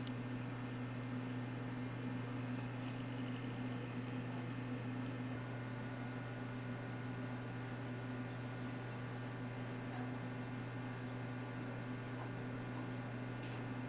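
Steady low electrical hum over a constant hiss, unchanging throughout.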